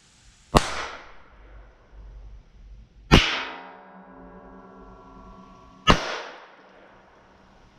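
Three shots from a Browning Buck Mark .22 LR pistol, about two and a half seconds apart. After the second shot a ringing tone hangs on until the third shot.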